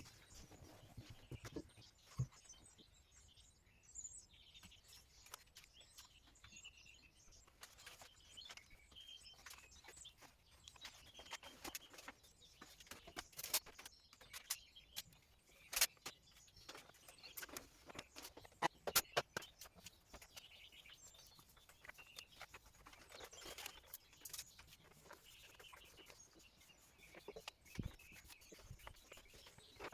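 Faint birds chirping now and then, with scattered sharp clicks and light rustling throughout.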